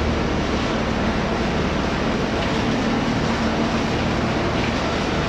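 Washing-machine recycling plant machinery running: a steady, dense rumble with a low hum underneath.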